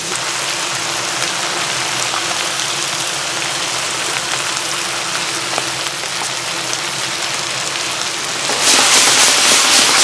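Beef stir-frying in a hot pan for a miso stir-fry, a steady sizzle that gets louder about eight and a half seconds in.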